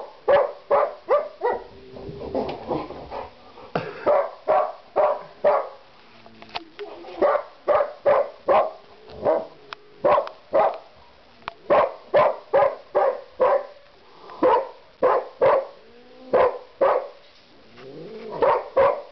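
Dog barking repeatedly at a cat it cannot reach, in quick runs of sharp barks with a few short pauses between runs.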